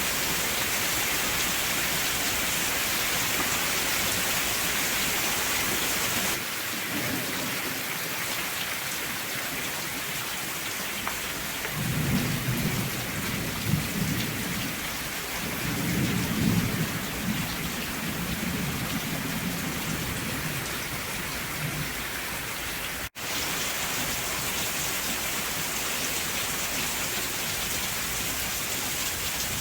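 Steady rain with rolling thunder: a low rumble swells from about twelve seconds in and fades away some ten seconds later. The rain's hiss shifts slightly about six seconds in, and the sound cuts out for an instant about two-thirds of the way through.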